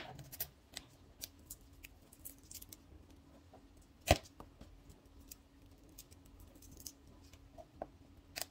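Garlic cloves being peeled by hand: small, scattered clicks and crackles of the papery skin, with one sharp knock about four seconds in.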